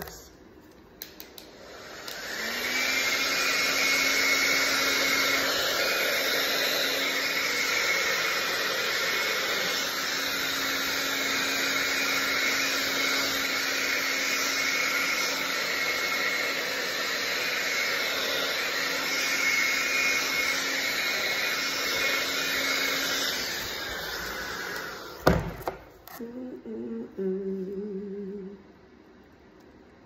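Handheld hair dryer switched on about two seconds in and blowing steadily for some twenty seconds with a constant motor hum, pushing wet acrylic pour paint across the canvas, then winding down; a sharp knock follows shortly after.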